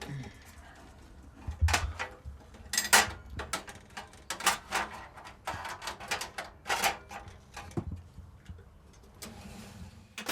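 Irregular metal clicks, knocks and scrapes as a heavy Philips tape deck is worked into its rack, with a dull thud about two seconds in.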